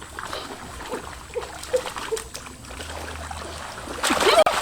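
Water trickling and dripping with small splashes, then louder, busier splashing starting about four seconds in.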